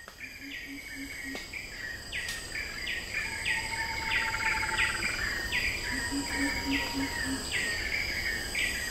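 Tropical forest ambience: a steady high drone of insects, with a bird repeating a short call about twice a second. Twice a brief run of low pulsed calls sounds beneath them.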